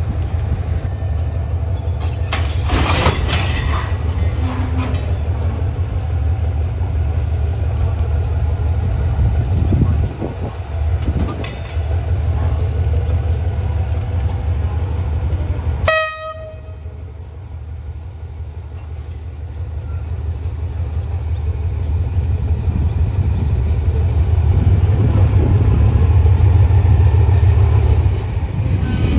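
Diesel-electric locomotive GEA 4523 running with a heavy low rumble as it shunts a train. About halfway through the sound drops abruptly with a brief horn toot, then the rumble builds and is louder near the end.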